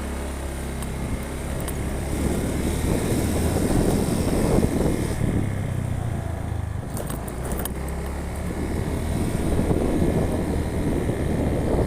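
Motor vehicle engine running steadily while travelling on a hilly road, with road and wind noise over a low engine hum.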